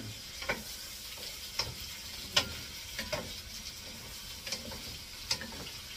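Squid rings sizzling as they fry in butter and browned garlic in a wok, stirred with a wooden spatula that knocks against the pan several times.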